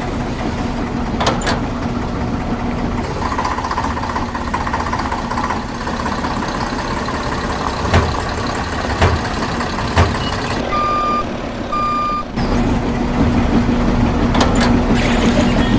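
Toy RC truck running with a steady hum. Three short knocks come a few seconds before two reversing beeps, which sound about a second apart near the end.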